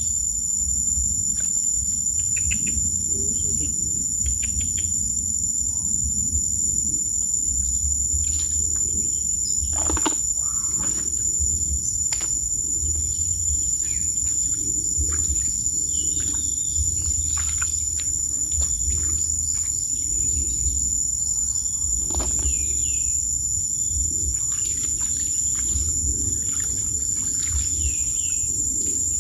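Steady high-pitched drone of an insect chorus, with scattered short bird chirps, a low rumble and a few sharp clicks.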